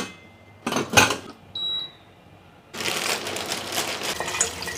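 Sharp metal clicks and knocks from a steel pressure cooker being closed and set on the gas stove, loudest about a second in. From a little under three seconds in comes a steady hiss of tap water with scattered light clatter, running onto okra in a steel colander.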